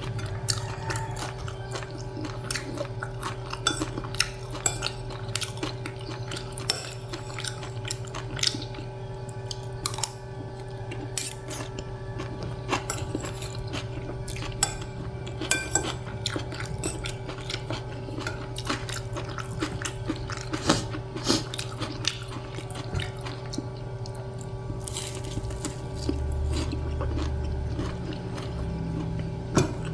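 Eating: cutlery clicking and scraping on a plate, with chewing, over a steady low hum.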